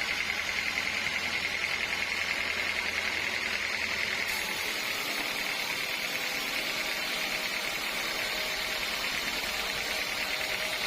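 Sawmill saw running steadily, a continuous whining hiss with a fast flutter. The low hum drops away abruptly about four seconds in.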